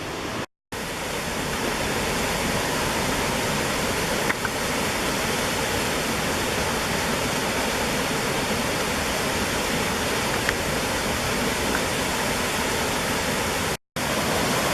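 Small creek waterfall rushing steadily, a constant even wash of falling water. The sound cuts out completely for a moment twice, about half a second in and again near the end.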